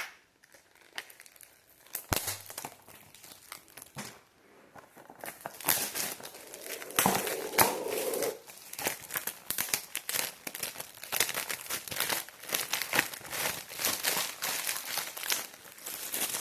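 Plastic shrink-wrap being torn and crinkled off a Blu-ray case: a few scattered crackles at first, then continuous crinkling from about five seconds in.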